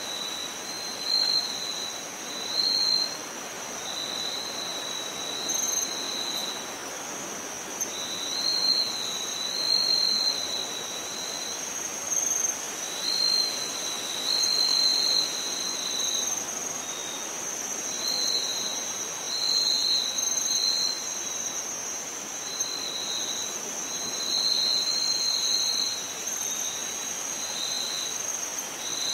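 Chorus of insects: a steady high-pitched trill, with a second, slightly lower trill coming in short bursts every second or two, over a soft hiss.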